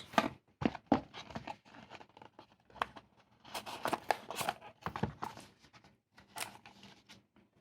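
Paper cards and cardboard packaging being handled: an irregular run of rustles, crinkles and sharp little taps and clicks.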